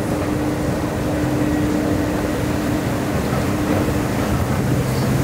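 Escalator running during a ride down: a steady machinery hum with a constant low tone.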